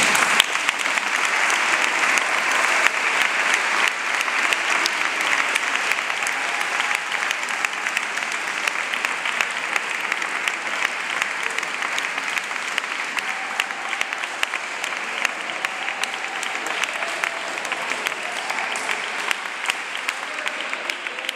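Applause from a crowd of many people clapping, dense and steady, slowly dying down toward the end.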